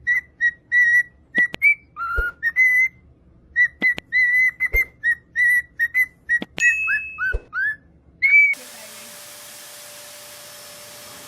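Parrot whistling a tune: a quick run of short, clear whistled notes, some sliding down in pitch. It cuts off abruptly about eight and a half seconds in, giving way to a steady hiss.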